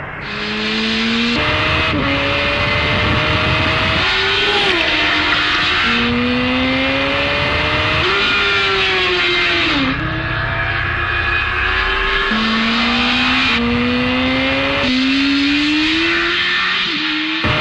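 2004 Yamaha YZF-R1's 998 cc inline-four engine at high revs on a track. It accelerates hard through the gears, the pitch climbing and then dropping sharply at each upshift, with two spells where it falls and builds again.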